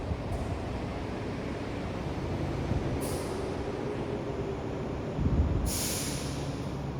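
Train or subway car running, a steady rumble with two short bursts of air hiss, the first about three seconds in and a longer one near the end.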